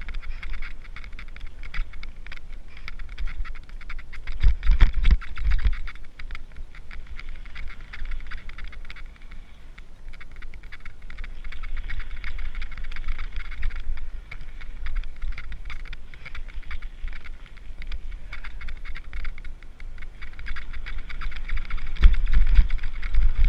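Mountain bike being ridden along a trail: a continuous fine crackle and rattle over a low rumble, with heavier jolts about five seconds in and again near the end.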